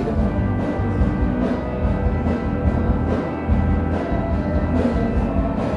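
Background music with low drums or timpani and a steady pulse.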